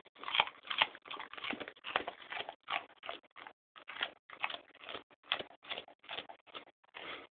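Dog biting and chewing into a raw pumpkin: an irregular run of crunching bites, several a second, broken by short pauses.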